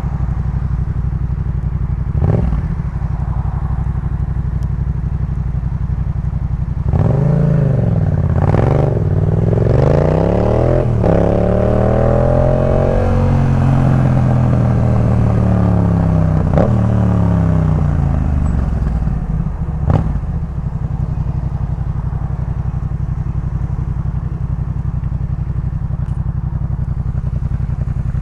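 A Yamaha MT-07's 689 cc parallel-twin running through a Jeskap K4 full exhaust. It holds a steady low idle, then about a quarter of the way in the engine speed climbs and falls in a few swells over roughly ten seconds before settling back to a steady idle. A few sharp clicks sound along the way.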